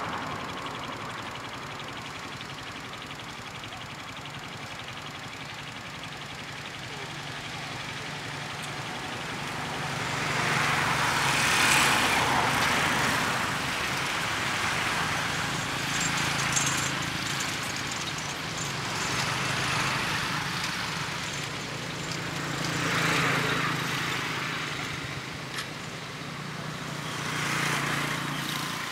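Outdoor traffic noise: vehicles pass one after another, each a swell of engine and road noise that rises and fades over a few seconds, over a low steady hum.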